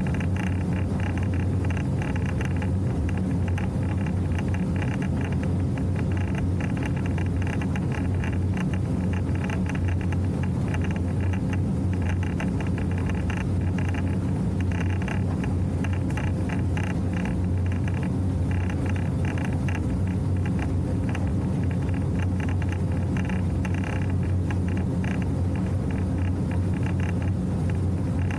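Motorboat under way at steady cruising speed: a constant low engine drone with a fluttering rush of wind and water over it.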